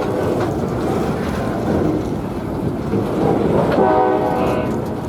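Locomotive's Nathan K5LA five-chime air horn sounding a short blast about four seconds in, over the steady rumble of a train running on the rails.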